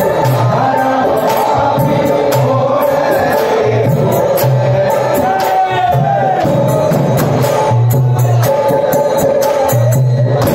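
Live folk singing into a microphone, with other voices joining in, over a steady beat on a hand-played barrel drum and sharp jingling strikes of hand percussion.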